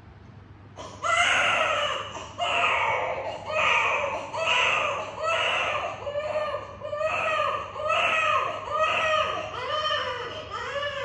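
Newborn baby crying in a run of short, rising-and-falling wails, about one a second, starting about a second in.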